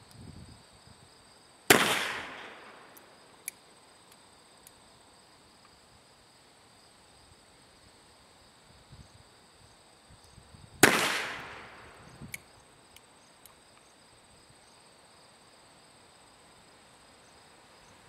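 Two shots from an antique British Bulldog .44 double-action-only revolver, about nine seconds apart, each followed by a short echo. A sharp click comes about a second and a half after each shot, over insects trilling steadily.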